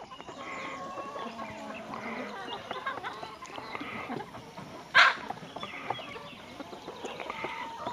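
A mixed backyard flock of hens (White Rocks, Barred Rocks, Australorps) clucking on and off, many small calls overlapping, with one louder brief sound about five seconds in.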